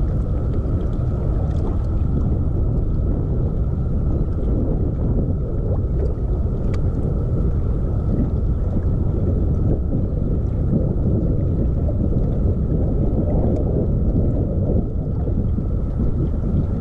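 Electric trolling motor on a bass boat running steadily: a constant hum with a thin high whine over a low rumble of water and wind.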